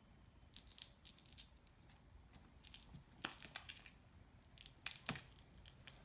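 Scattered light clicks and taps from a cat's paws and body on a laptop keyboard as it bats at a wand toy, coming in small irregular clusters, the busiest about halfway through.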